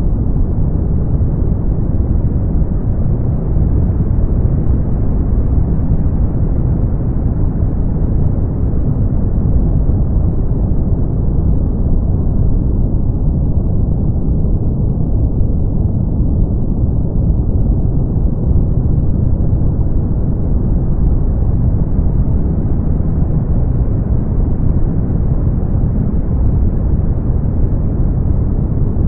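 Brown noise: a steady, deep hiss with most of its weight in the bass and little treble, unchanging apart from the top end dulling slightly midway through.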